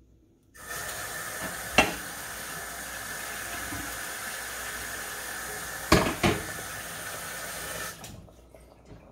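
Water running steadily from a tap, switched on just after the start and off about seven seconds later. A few sharp metal clinks come about two seconds in and twice around six seconds in.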